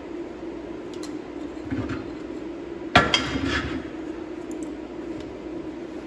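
Steel parts being set down on a steel welding table: a light knock a little under two seconds in, then a sharp metallic clank with a short ringing tail about three seconds in, over a steady low hum.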